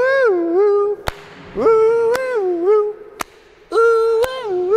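A high voice singing or howling long wordless notes that bend up and down, in four drawn-out phrases. A sharp click sounds about once a second.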